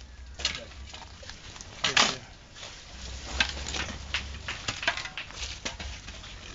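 Shovels scraping and scooping into a pile of sand and cement on the ground, a run of short gritty scrapes with a longer, louder scrape about two seconds in, as the mix is hollowed out into a ring for the water.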